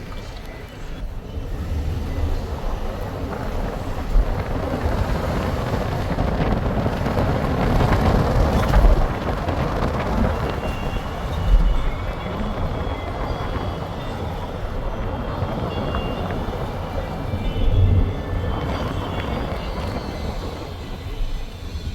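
Car driving along a road: a steady rush of road and engine noise with a low rumble and a few louder bumps.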